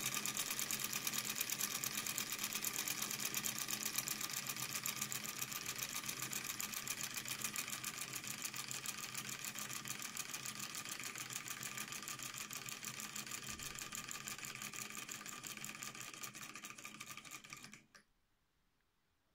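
Wilesco M60 model hacksaw, belt-driven by a Stirling engine, clattering rapidly as its blade reciprocates across a pencil. The even rhythm slowly slows and fades, and the sound stops suddenly about 18 seconds in.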